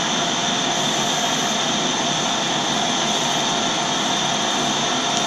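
Metal lathe turning a large workpiece with the cutting tool in the cut: a steady cutting noise with a high whine.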